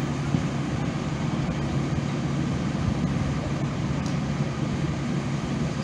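Fire truck's diesel engine idling: a steady low rumble with a constant hum.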